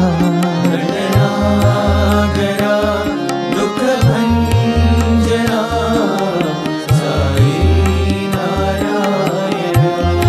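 Devotional bhajan music in an instrumental passage: melody instruments over tabla, whose low drum strokes bend in pitch in a steady rhythm.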